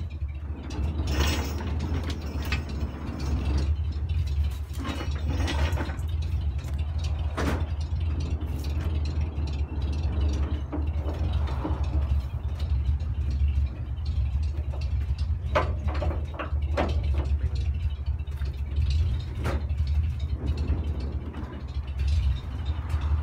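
1933 Ford side-valve V8 idling steadily while driving a Garwood power-take-off winch, with irregular clicks and knocks from the winch gears and ratchet as it works the cable.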